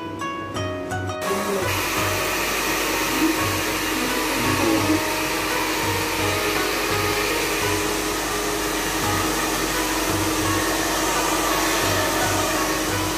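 Hand-held hair dryer blowing steadily, starting about a second in. Background music with plucked notes at first and a steady low beat runs under it.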